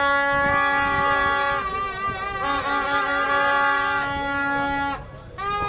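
Several horns blown in long, steady, overlapping blasts at different pitches, breaking off briefly about five seconds in before starting again.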